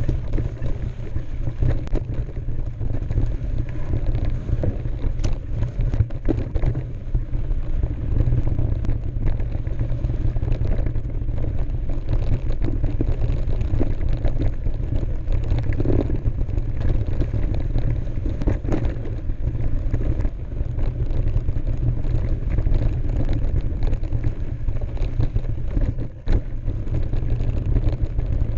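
Heavy wind buffeting on the microphone of a camera riding on a moving mountain bike, with the tyre rolling over a dirt trail and frequent short clicks and knocks as the bike rattles over rough ground.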